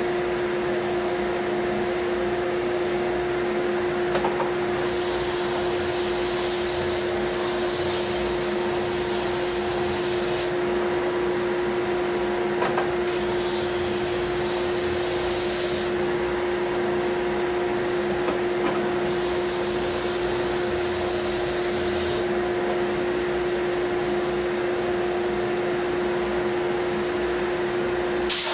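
Ridgid oscillating belt and spindle sander and a dust collector running with a steady hum. Three times, for a few seconds each, a hiss comes in as a wooden bandsaw box is pressed against the 80-grit aluminum oxide sandpaper.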